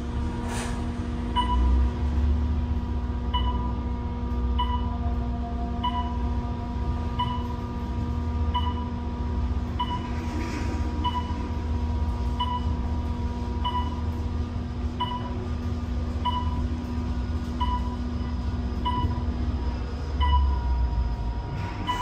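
Elevator car climbing with a short electronic beep about every second and a quarter as it passes each floor. Under the beeps is a steady low rumble and hum from the car's motion, which swells just after the start and again near the end.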